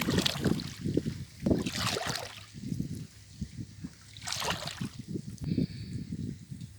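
Water splashing and sloshing around a small fishing boat in uneven bursts, with three louder splashes: near the start, about two seconds in and about four and a half seconds in.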